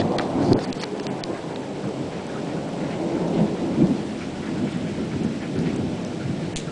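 Thunder rumbling over steady rain, swelling twice, with a few sharp ticks in the first second or so.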